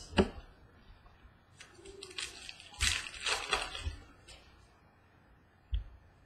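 Baseball trading cards being handled and flicked through by hand: a papery rustle with a few light clicks in the middle, and a single soft thump near the end.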